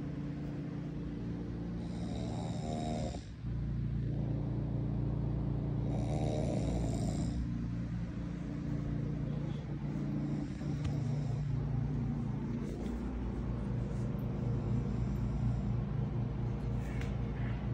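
A person asleep in bed snoring, one snore about every four seconds, over a steady low hum.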